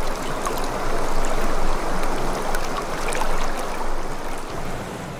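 Water running and splashing steadily, with small drips and patters, easing off near the end.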